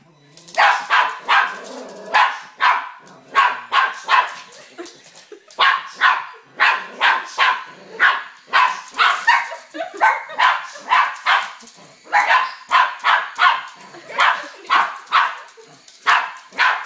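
Small dog barking over and over in quick runs of sharp barks with short pauses between, agitated by a toy helicopter.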